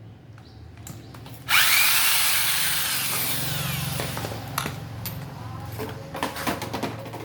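A loud hiss starts suddenly about a second and a half in and slowly fades, followed by several sharp clicks and knocks.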